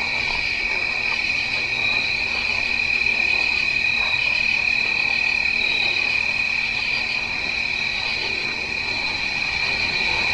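A continuous night chorus of crickets, many insects trilling together in two steady high-pitched bands, with no pause or change.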